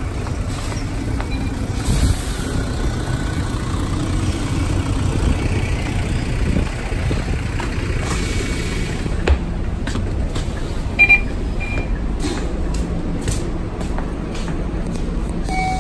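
Scania K230UB city bus's diesel engine idling with a steady low rumble at the stop while passengers board. A couple of knocks sound, and a short high double beep comes about eleven seconds in, as a fare card is tapped on the reader.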